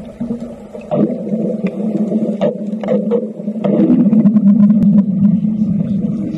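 Underwater arc welding: a low steady buzz with scattered crackling clicks, growing louder about three and a half seconds in as the arc burns at the steel.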